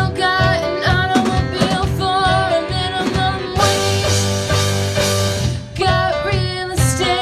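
Rock band playing: a singer over guitars and a drum kit keeping a steady beat, with a held chord and a cymbal wash from about three and a half to five and a half seconds in.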